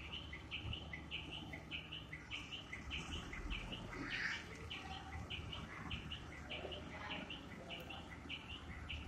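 A bird chirping over and over, a little over two short chirps a second, with a truck engine's low rumble underneath.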